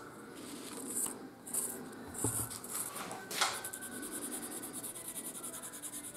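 Graphite pencil rubbed back and forth along the edges of a laser-cut wooden part to coat them with graphite: a few separate scratchy strokes, a light tap about three and a half seconds in, then a fast, even run of scribbling strokes.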